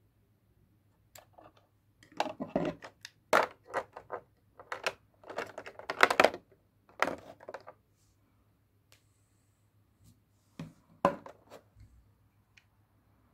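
Irregular plastic clicks and rustling from small hard plastic parts being handled and set down in a plastic packaging tray: an epilator body, its snap-on heads and charging cord. The busiest stretch is in the first half, with a short burst of clicks near the end.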